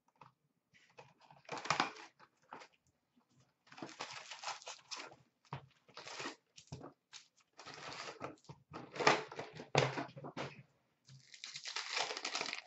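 Hands tearing open a sealed cardboard hockey-card box, handling the wrapped packs inside and ripping a pack open. The sound is several bursts of tearing, rustling and crinkling with short pauses between them.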